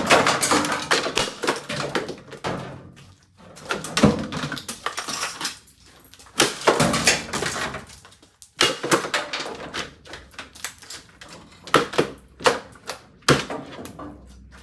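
Hard plastic parts of a ToastMaster TM-122CM drip coffee maker clattering and knocking as it is handled and pulled apart: quick runs of clicks, rattles and thuds with short pauses between.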